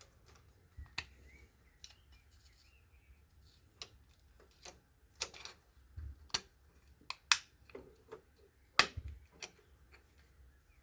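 Irregular light clicks and knocks of small 3D printer parts being handled and fitted by hand, about a dozen spread unevenly, the loudest knock near the end.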